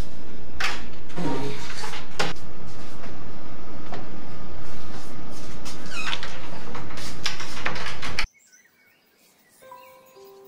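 Clothes rustling, with wardrobe doors and hangers clicking and knocking, over a loud steady hiss. It cuts off abruptly near the end.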